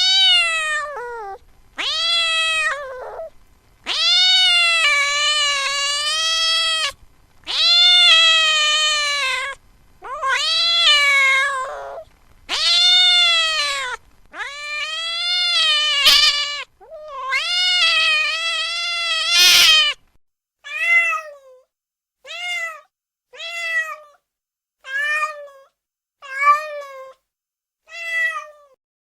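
Domestic cat meowing over and over. First comes a run of long, drawn-out meows of two to three seconds each, then, about two-thirds of the way through, a quicker string of short meows.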